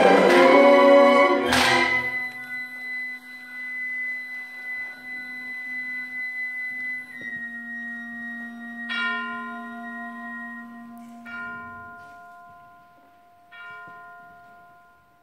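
A symphony orchestra plays loud full chords for the first two seconds, then drops to a soft held chord. Over it, bell-like notes are struck three times in the second half, each left ringing as the music fades.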